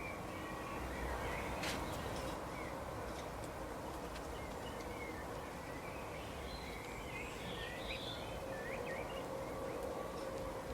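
Wild songbirds chirping in short, scattered calls, busiest about two-thirds of the way through, over a steady low background rumble.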